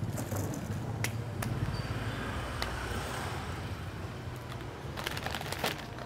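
Plastic snack bags on a wire display rack rustling and crinkling as they are handled, with a few sharp clicks and a denser patch of crinkling near the end. A steady low rumble of street traffic runs underneath.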